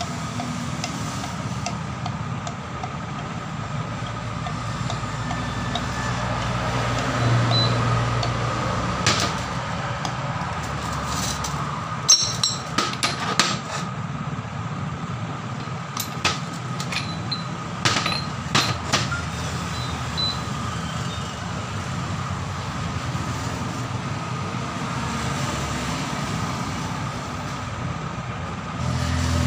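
Sharp metal clinks and knocks of air impact wrench parts (hammer case, steel ring) being handled and set down on a steel workbench, in scattered clusters through the middle, over a steady low rumble of road traffic.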